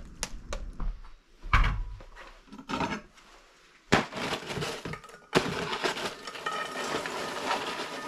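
Popped popcorn poured from a foil-covered pot into a stainless steel bowl: a dense, continuous rustling clatter with foil crinkling. It starts suddenly about five seconds in, after a few scattered knocks and a sharp clack.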